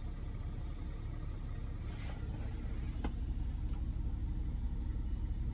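Steady low rumble inside a BMW X5's cabin, with a single sharp click about three seconds in.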